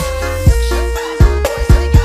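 Loud electronic dance music with heavy deep bass and hard kick drum hits under a held melody line, played through a large carnival sound system during a sound check.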